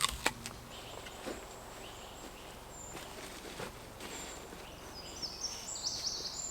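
Quiet woodland background with a few light knocks early on, and a small bird singing short, high notes for the last second or so.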